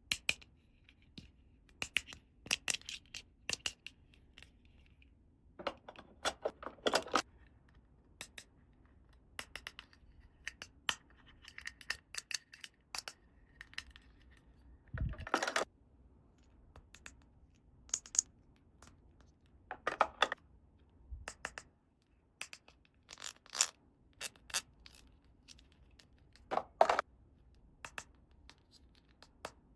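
Small plastic toy pieces being handled, set down and fitted together: irregular clicks, taps and short scrapes, with a few louder knocks.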